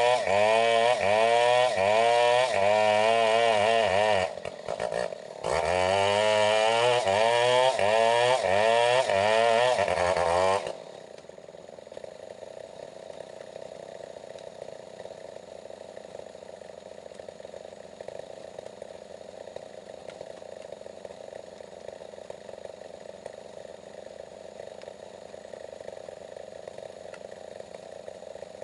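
Stihl 070 two-stroke chainsaw running hard, its pitch wavering up and down about twice a second, with a brief drop about four seconds in. The loud running cuts off suddenly about ten seconds in, leaving a much quieter steady hum.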